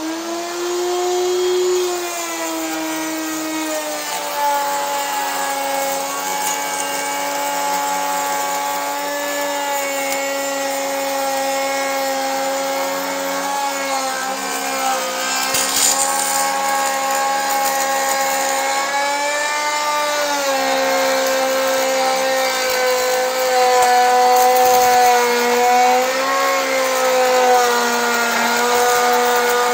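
Router mounted in a router table running with a rabbeting bit, cutting a rabbet along a pine board: a steady motor whine whose pitch drops a few seconds in as the bit takes the load, then dips a little twice more as the feed goes on.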